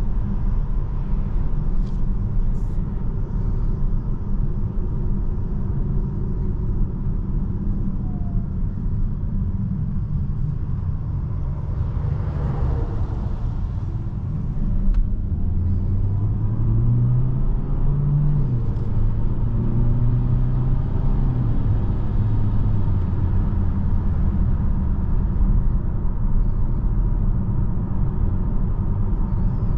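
Inside the cabin of a DS 4 E-Tense 225 plug-in hybrid on the move: steady low road and tyre rumble, with a brief rush of noise a little before halfway. From about the middle, the 1.6-litre turbo four-cylinder petrol engine comes in as the car accelerates, its note rising twice before settling back into the road noise.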